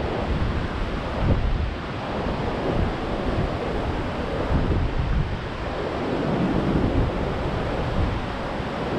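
Storm-driven surf breaking continuously onto the beach, several lines of waves washing in at once, with gusty wind buffeting the microphone in a low, uneven rumble.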